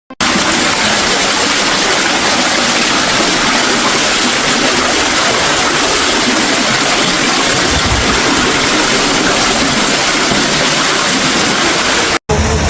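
Loud, steady rushing of water, cutting off abruptly near the end.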